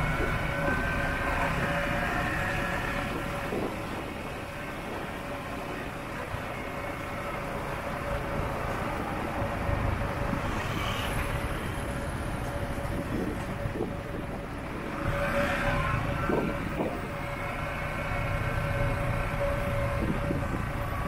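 Motorbike riding through city traffic: its engine running steadily under road and wind noise, with a steady hum and the sound of surrounding cars. Other vehicles swell louder about ten seconds in and again about fifteen seconds in.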